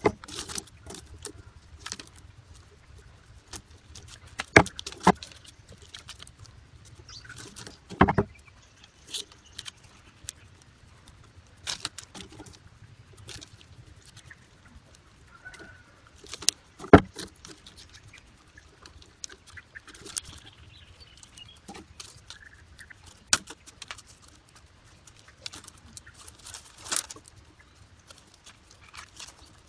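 Thin split-bamboo strips clicking, rattling and rustling as they are handled and woven by hand, with a few louder knocks scattered through, the loudest about seventeen seconds in.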